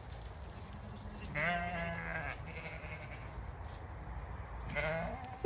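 Zwartbles ewe bleating: one long wavering bleat about a second and a half in, with a shorter call near the end.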